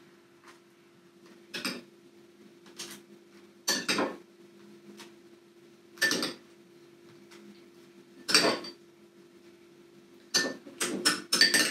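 A spoon clinking against glass bowls as thick yogurt is scooped into a baking-paper piping bag: separate sharp clinks a second or two apart, then a quick run of them near the end, over a faint steady low hum.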